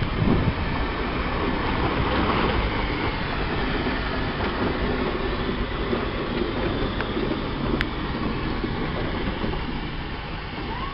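Steam traction engine running and moving at close range: a steady mechanical rumble with clatter from the engine and its iron wheels.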